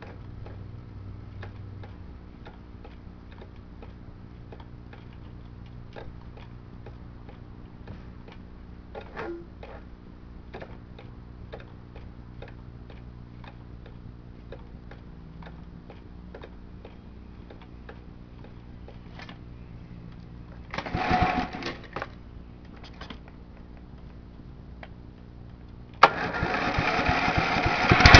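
Faint steady low hum with scattered light ticks, then a short burst of noise about three-quarters of the way in. Near the end, the John Deere 14SE mower's engine starts up and runs, quickly getting much louder.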